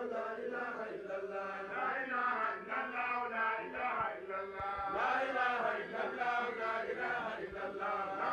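Men's voices chanting a religious chant, running on without a break.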